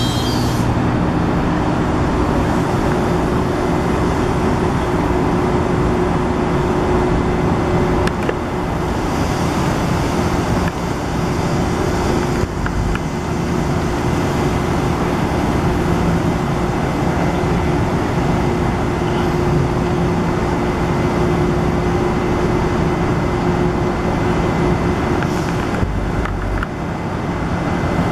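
Steady engine drone, a low hum under a broad rushing noise, fading out a couple of seconds before the end.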